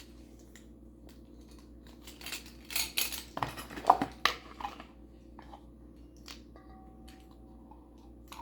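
Metal measuring spoon clinking and scraping against bowl and container as baking powder is spooned into flour, in scattered clicks that are busiest around the middle.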